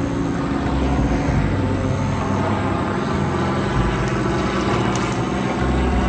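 Helicopter flying overhead, its rotor and engine making a steady drone.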